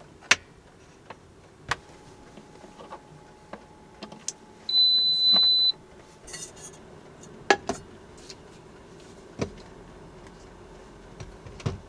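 Induction cooker giving one electronic beep, a steady high tone lasting about a second near the middle, as it is powered up. A few sharp clicks and knocks of the cord and plug being handled come before and after it.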